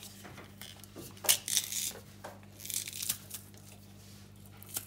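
Hand-held garlic press crushing garlic cloves: a click about a second in, then two short crunching squeezes as the cloves are forced through, and another click near the end.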